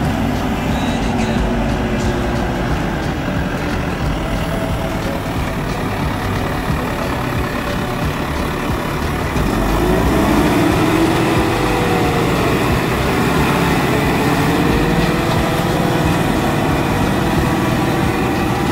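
Same Explorer3 100 tractor's diesel engine running under load as it pulls a five-shank subsoiler through the soil. It is a steady engine noise that grows louder about halfway through, and its pitch wavers up and down slightly for a few seconds.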